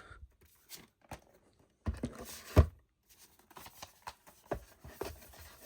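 Disc cases in slipcovers being slid back into a cardboard outer box: a short scrape about two seconds in that ends in a knock, and a few light taps.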